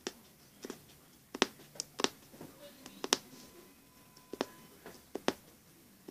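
Punch needle piercing fabric stretched taut in a wooden embroidery hoop: a series of sharp ticks at an uneven pace, roughly two a second.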